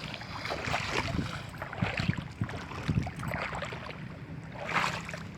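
Irregular water splashing and sloshing, with wind on the microphone.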